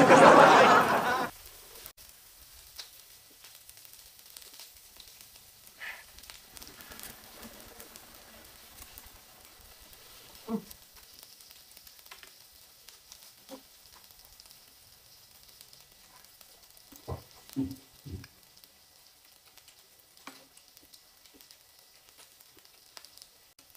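Food sizzling faintly on a hot griddle, after a loud hiss about a second long at the start, with a few soft eating sounds.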